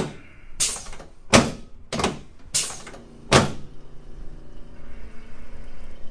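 A run of six sharp thuds, about one every 0.7 s, from chiropractic adjusting thrusts on the lower back of a patient lying on a treatment table. The thuds stop about three and a half seconds in, and a low rustle follows.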